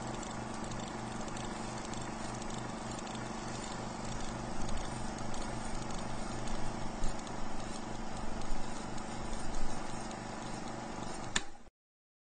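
Film projector running: a steady mechanical whir and clatter with a low hum, which cuts off with a click near the end.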